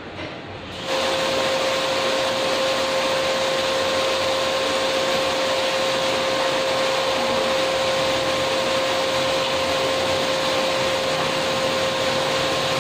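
Canister vacuum cleaner starting up about a second in, then running steadily with a constant whine over its motor noise.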